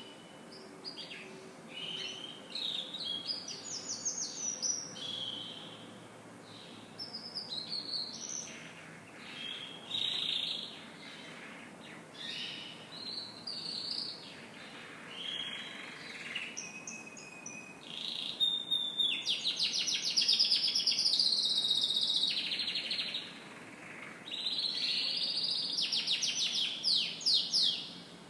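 Domestic canary singing a long, varied song of chirps and whistled phrases, breaking into fast, loud rolling trills in the second half.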